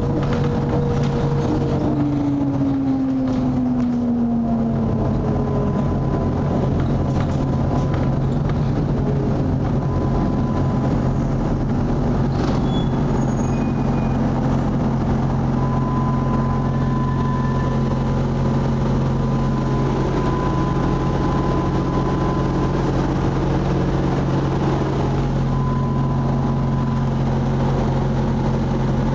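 ZIU-9B trolleybus running, heard from inside the cabin: a steady low electric hum and rumble. A whine falls in pitch a couple of seconds in, and a thin high tone comes and goes.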